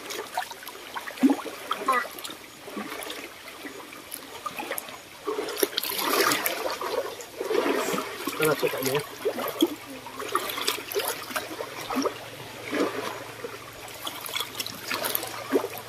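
Sea water washing and trickling among shoreline rocks, swelling and ebbing in irregular surges.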